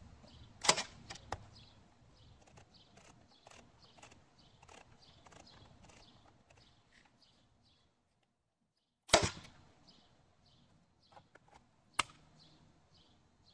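Sharp mechanical clicks from a Ryobi P317 18-volt cordless crown stapler being handled and worked: two within the first second and a half, one about nine seconds in, and one near the end. Faint high chirps repeat steadily in the background.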